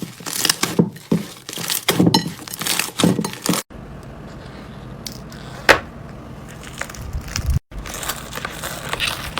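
Crunchy slime being squeezed and pressed by hand, with dense crackling and popping. In the middle comes a quieter stretch over a steady low hum with one sharp crack, and then the crackling returns.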